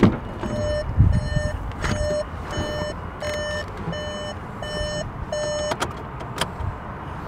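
A Volkswagen Golf 7's electronic warning beeper sounding a pitched beep at a steady pace, about eight beeps a little under a second apart. There is a dull thump about a second in and a sharp click near the end.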